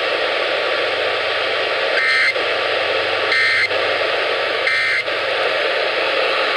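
Emergency Alert System end-of-message data bursts: three short, identical warbling digital bursts, about a second and a third apart, that close the alert. They play over a loud, steady hiss of radio static.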